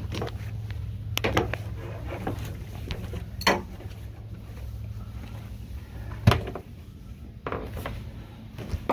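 Footsteps and handling knocks as someone goes down a boat's stairs into the cabin: a few sharp knocks at irregular intervals, the loudest about six seconds in, over a low steady hum that drops away at about the same point.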